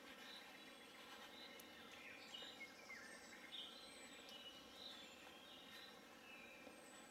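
Near silence with faint birdsong: repeated short high chirps and a few thin, very high, falling whistles.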